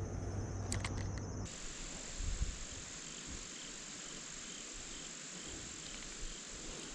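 Steady high-pitched insect song, a continuous trill from crickets or similar insects in the creekside vegetation. A low hum under it stops abruptly about one and a half seconds in.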